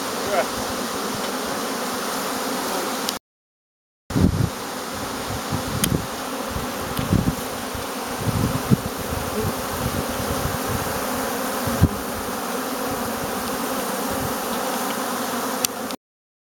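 Dense, steady buzzing of many honeybees flying around their hive entrances, a busy colony at work on a sweet clover nectar flow. The sound breaks off for about a second some three seconds in, and after it returns a few low thumps sound under the hum.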